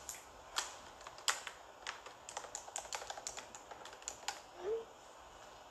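Quick, irregular tapping clicks close to the microphone, like typing, coming thickest in the middle, with one short rising squeak about three-quarters of the way through.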